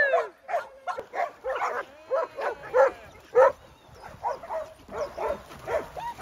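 Dogs barking and yipping excitedly in a quick string of short calls, about two or three a second.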